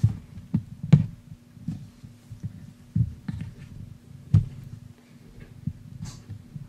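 Handling noise: irregular low thumps and sharp clicks from hands and a small screwdriver working at the laptop's underside and the camera, over a faint steady hum.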